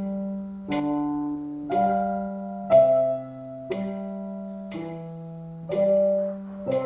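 Digital piano played with both hands: notes and low bass notes struck together about once a second, each held until the next, at a slow, steady pace.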